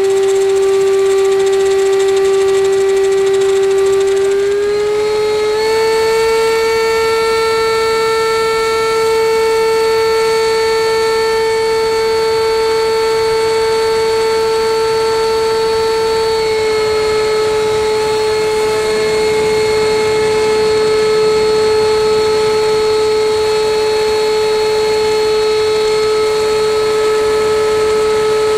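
Radio-controlled L-39 Albatros model jet's ducted-fan power unit whining steadily in flight, heard from on board. Its pitch rises about five seconds in as the throttle opens, eases down slightly past the midpoint, and then holds.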